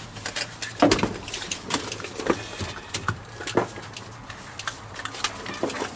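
Irregular clicks and knocks, a few sharper ones standing out, the loudest about a second in.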